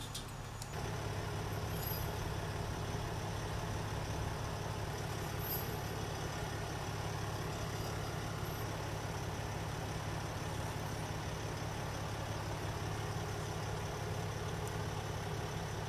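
Heavy truck's diesel engine idling, a steady low drone that comes up under a second in and holds even throughout.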